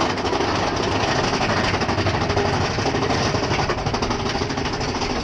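Mine-train roller coaster car rattling along its track, a loud, steady, rapid clacking.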